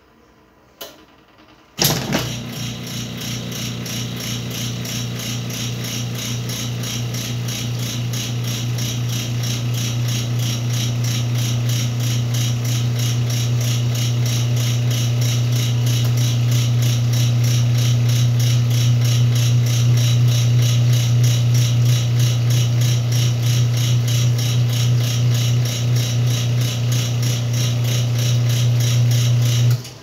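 Whirlpool top-load washing machine draining and spinning its load. The motor starts about two seconds in with a low hum and a fast, even mechanical ticking. It grows louder as the basket picks up speed, then cuts off abruptly at the very end.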